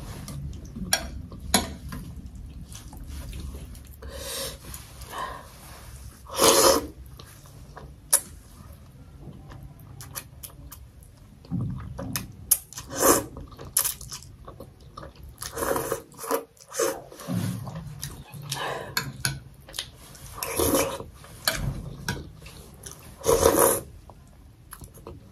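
A person slurping thukpa noodles and broth close to the microphone, with chewing and mouth smacking in between. Several loud slurps stand out, the loudest about six seconds in and near the end.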